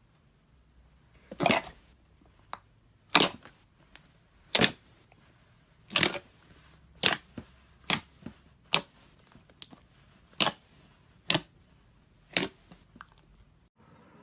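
Glossy slime being squeezed and pressed, giving a run of sharp wet pops and clicks about once a second as trapped air bursts.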